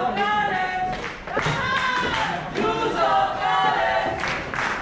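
Wrestling crowd chanting together in drawn-out, sung phrases, with hand claps near the end.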